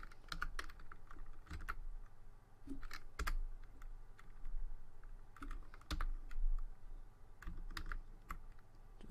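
Irregular clusters of clicks and taps from a computer keyboard and mouse being worked, over a low steady hum.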